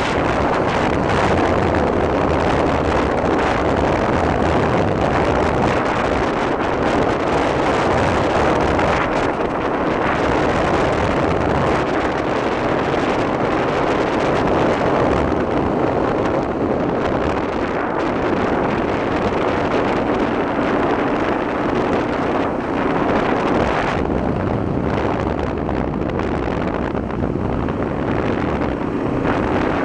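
Honda XL250 dirt bike's single-cylinder four-stroke engine running while being ridden, with wind buffeting the microphone.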